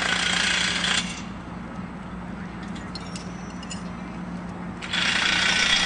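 Handheld power tool running in two bursts, about a second at the start and again near the end, during the bolting together of a steel competition bridge. Light metal clinks of steel members being handled come in between.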